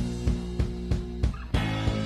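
Background music with held notes over a steady, regular beat.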